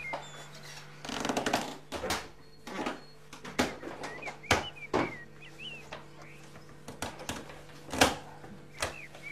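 Crockery being handled: plates and a lidded dish knocked and set down, a string of separate clinks and knocks, the sharpest about eight seconds in, with a short rustle near the start.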